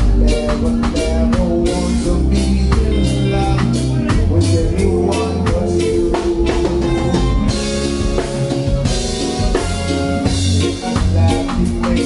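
Live reggae band playing a steady groove: drum kit strokes on an even beat over a heavy bass line.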